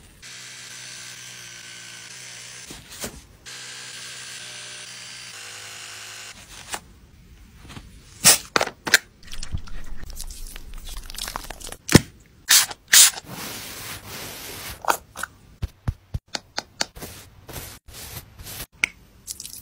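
Small electric pet-grooming tool buzzing steadily for about three seconds, stopping briefly, then buzzing again for about three seconds more. From about eight seconds in comes a run of sharp clicks and cracks.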